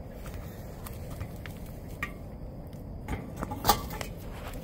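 Footsteps on dry leaves and dirt, with a few sharp clicks and light crunches, the loudest a little before four seconds in, over a low steady outdoor background.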